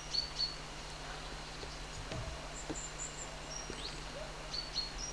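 Small birds chirping now and then in short, high chirps over a steady low hum and hiss.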